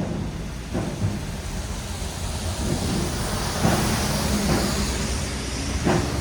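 Traffic on a wet city road: a steady rumble of engines with the hiss of tyres on wet asphalt as vehicles pass, and three short heavy thumps, about a second in, near the middle and near the end.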